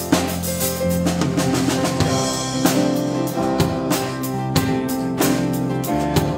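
Live worship band playing: a drum kit keeping a steady beat under acoustic guitar, with several voices singing into microphones.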